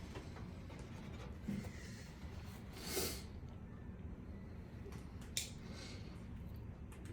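Faint handling noises of screws being fitted into the range's metal panel: a small knock, a soft puff about three seconds in and a click, over a quiet room background.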